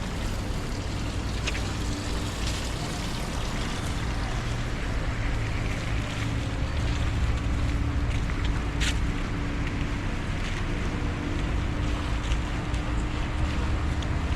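Steady noise of wind and surf, with low wind rumble buffeting the microphone and a few faint clicks.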